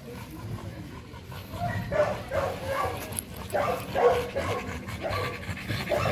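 Pit bull barking in a run of short barks, about two a second, starting about a second and a half in.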